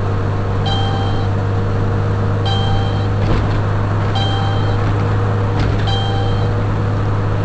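Steady drone and road noise inside a car's cabin at highway speed. A short electronic beep repeats about every second and a half to two seconds, four times.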